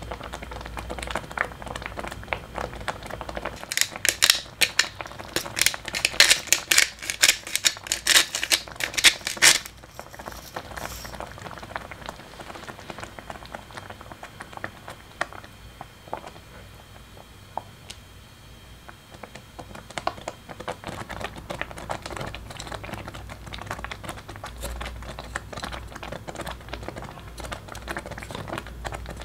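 Thick rice porridge boiling in a stainless steel pan, its bubbles popping and plopping in a rapid run of crackling clicks. The popping is heaviest in the first ten seconds or so, thins out for a while, then picks up again near the end.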